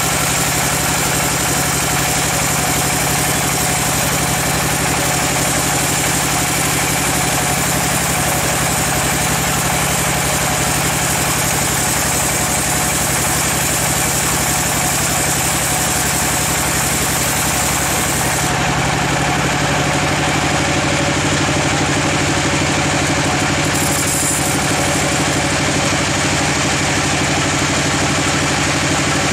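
Large log band saw running, its blade cutting through a giant teak log with a steady hiss over the machine's hum. About two-thirds of the way in, the high hiss falls away while the hum runs on.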